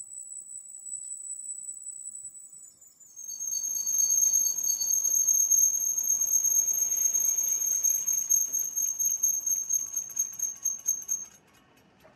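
Lathe cutting tool squealing against a spinning rickshaw wheel rim as it is turned: a steady high-pitched whine that drops a little in pitch and grows louder about three seconds in, with a rough rumble of the machining under it. It cuts off suddenly about a second before the end.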